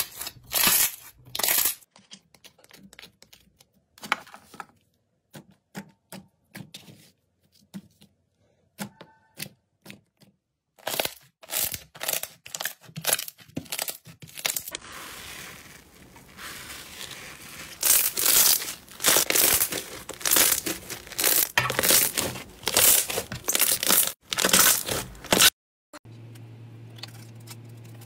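Hands squeezing and kneading slime: a string of wet sticky pops and clicks, turning into denser crackling in the second half, then stopping suddenly near the end.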